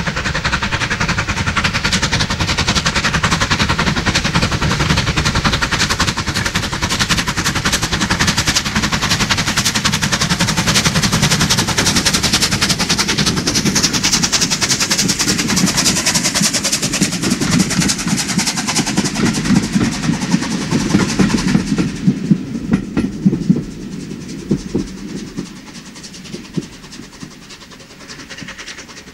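Bulleid Battle of Britain class three-cylinder steam locomotive passing under steam with its coaches, a loud mix of exhaust chuffs, steam hiss and wheel noise. About three-quarters of the way in, the coaches' wheels clatter over rail joints as the train draws away and the sound fades.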